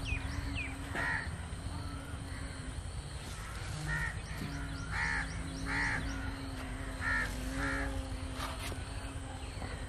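Crows cawing: about six short, harsh caws spread unevenly, two close together near the middle and two more a little later.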